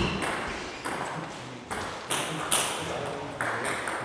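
Table tennis balls clicking sharply off bats and tables, about half a dozen irregularly spaced knocks, each trailing off in the hall's reverberation.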